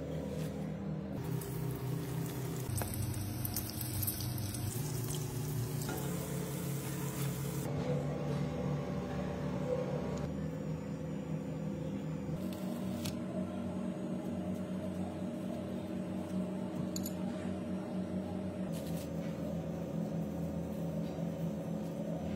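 Background music of sustained chords that change every second or two, with a hiss over the first several seconds.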